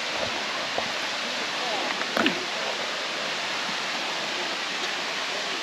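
Steady rushing of a waterfall close by, with a brief faint sound, perhaps a voice, about two seconds in.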